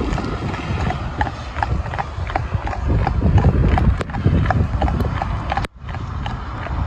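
A horse's hooves clip-clopping on wet tarmac in a steady rhythm of about three beats a second as it pulls a cart, over a steady low rumble. There is a brief break in the sound a little before the end.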